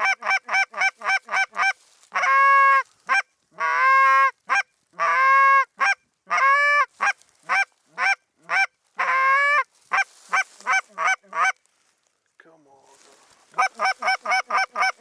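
Snow goose calls: quick, even runs of short high yelps, broken by several longer drawn-out calls in the middle, with a brief pause near the end before the quick yelps start again.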